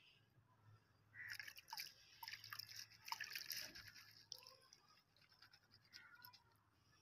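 Chopped onions being rinsed by hand in a plastic colander: a few seconds of faint wet rustling, splashing and dripping water, then a few scattered ticks near the end.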